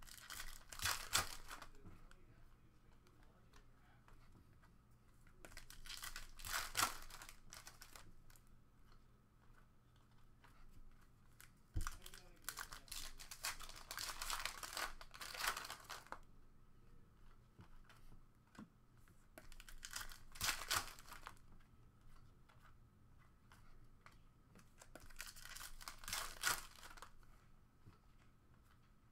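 Panini Prizm basketball card pack wrappers being torn open and crinkled by hand, in five separate bursts a few seconds apart.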